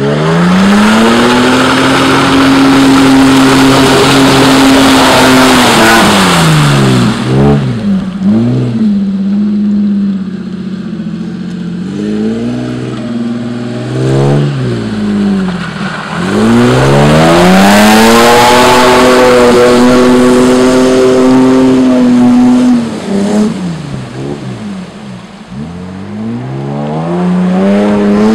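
Toyota Land Cruiser 80 Series engine and exhaust revving hard. It climbs to a high pitch, holds there for about five seconds and falls away, then gives several short throttle blips. A second long rev comes about halfway through, followed by more blips.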